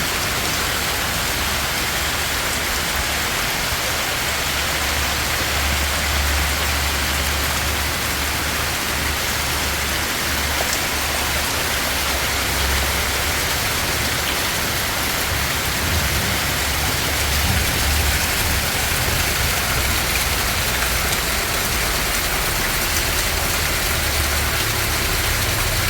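Heavy rain pouring down in a steady hiss, with a low rumble underneath that swells and fades.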